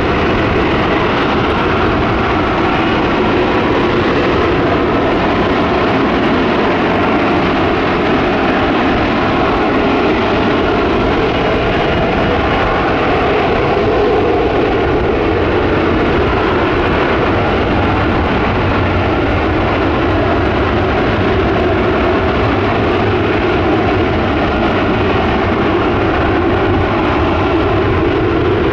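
Lockheed Martin F-35B hovering in vertical-landing mode, its F135 jet engine and shaft-driven lift fan running at high power: steady, loud jet noise with faint whining tones over it.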